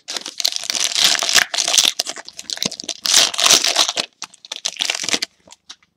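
Foil wrapper of a Panini Pinnacle basketball card jumbo pack being torn open and crinkled by hand, a dense crackling that stops a little after five seconds in.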